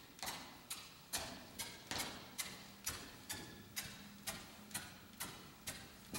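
Sharp clicks at a steady beat, about two a second, each followed by a short ringing tail.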